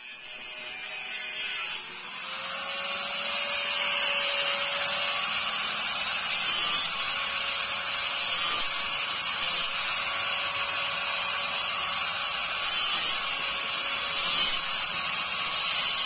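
Corded angle grinder running steadily while cutting steel angle bar, a continuous high whine with a hissing edge that builds up over the first few seconds and then holds level.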